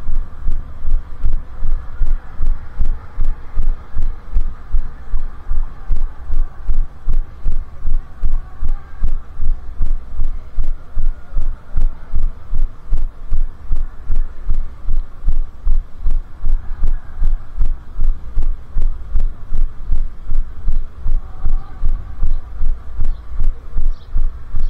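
Low thuds of a runner's footfalls jarring the body-worn camera, nearly three a second in an even running rhythm, over a faint steady hum. A few short high chirps come in near the end.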